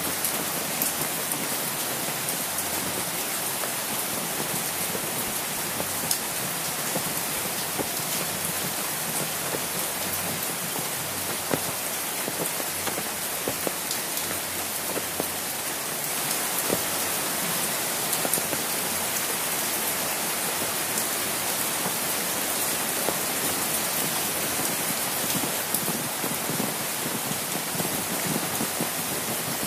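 Steady rain falling on and around an umbrella, with a few louder single drops ticking sharply now and then.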